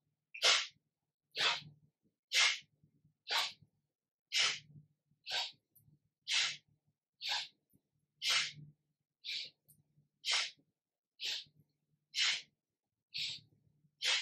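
Kapalabhati breathing: a woman's sharp, forceful exhalations through the nose, about one a second, each a short hiss with silence between.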